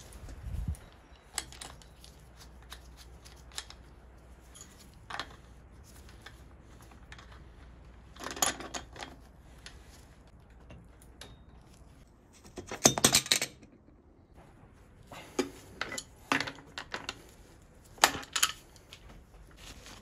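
Metal tools clicking and clinking against a bicycle crankset as the crank arm is removed from its square-taper bottom bracket axle with an adjustable wrench and a crank puller. Scattered sharp clicks, with louder bursts of metallic rattling about eight and thirteen seconds in.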